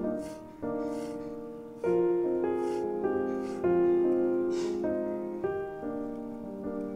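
Background piano music: a slow, gentle melody of chords that are struck and left to fade.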